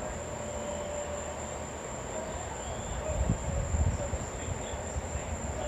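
Steady high-pitched insect trilling, with a low rumble that swells about three seconds in and fades by four.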